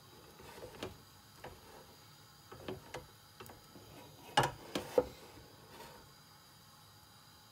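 Irregular light clicks and taps from a metal tava with a naan cooking on it over a gas hob, the loudest a pair about four and a half and five seconds in.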